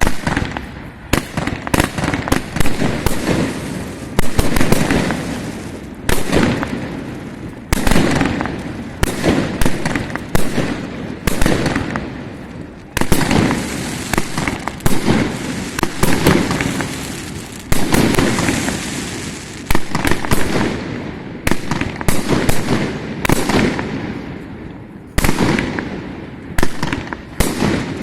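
Fireworks display: aerial shells bursting in quick succession, starting suddenly, with a sharp bang every one to two seconds, each fading out in a rumbling echo.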